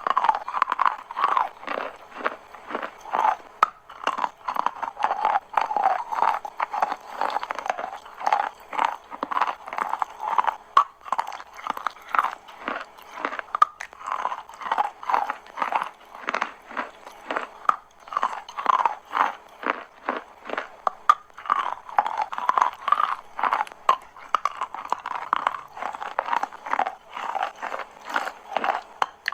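Chalk being bitten and chewed close to the microphone: a fast, continuous run of crisp crunches, several a second.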